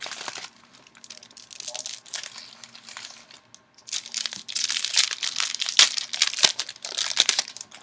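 Foil booster-pack wrappers crinkling and tearing as trading-card packs are opened by hand, in bursts that grow louder and busier about halfway through.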